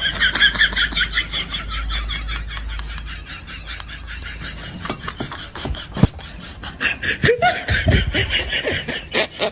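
Rapid, high-pitched snickering giggle, a quick run of repeated 'hehehe' sounds with a few lower voiced sounds near the end. It starts and stops abruptly, like an added laugh sound effect.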